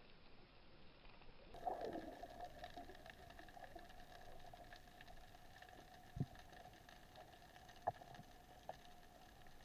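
Faint underwater ambience picked up by a diver's camera. A steady hum comes in about a second and a half in, with a few sharp clicks and one brief low thump partway through.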